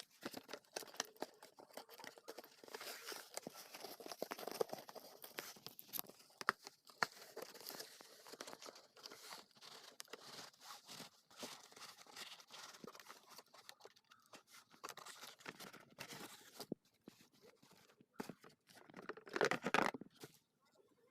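Irregular rustling, crinkling and small clicks of handling plastic packaging and accessories, with a louder brief sound near the end.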